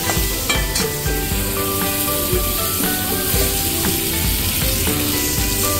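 Raw mango pieces sizzling in hot oil in a metal kadhai, with a flat metal spatula scraping and clicking against the pan as they are stirred. Background music with a regular beat plays over it.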